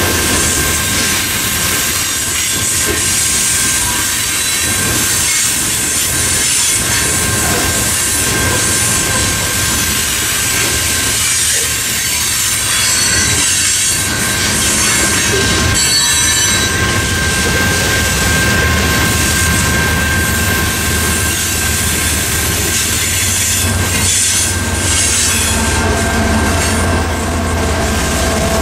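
Freight cars rolling through a grade crossing: a steady rumble and rattle of wheels on rail, with the crossing's electronic bells ringing throughout. Near the end the mid-train GE ES44AH diesel locomotive, working as a distributed power unit, passes and adds a low engine drone.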